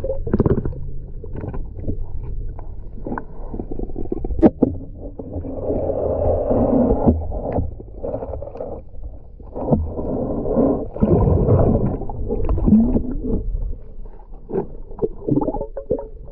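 Muffled underwater sound picked up by a submerged camera: low rumbling water movement with scattered clicks and knocks. Two longer swells of noise come about six and about ten seconds in.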